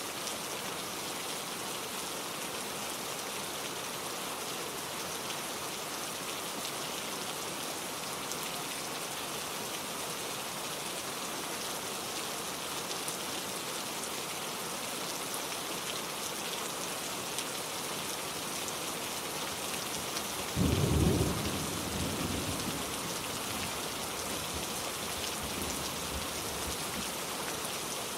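Steady rain falling, with one short, loud, low rumble of thunder about two-thirds of the way through that dies away over a couple of seconds.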